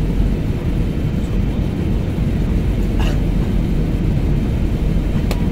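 Airliner cabin noise during the descent to land: a steady low rumble of the jet engines and airflow heard from a window seat, with two brief faint clicks near the middle and the end.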